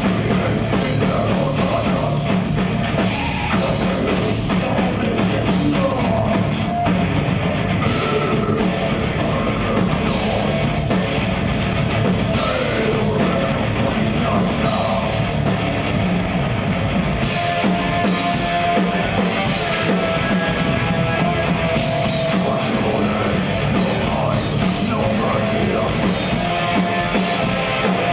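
A progressive death metal band playing live: distorted guitars, bass and a drum kit, loud and unbroken.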